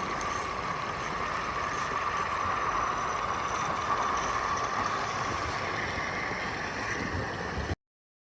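Small live steam garden-railway locomotive running, a steady hiss of steam. It cuts off suddenly near the end into silence.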